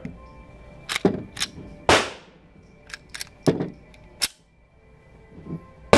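9mm pistol shots in an indoor range, echoing off the walls: loud reports about two seconds in, at about three and a half seconds and again at the end, with several fainter, sharper cracks between them.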